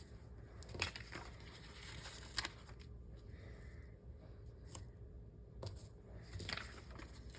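Faint paper and sticker handling: stickers peeled from their backing sheet and pressed onto planner pages, with a few scattered soft crinkles, scrapes and light taps.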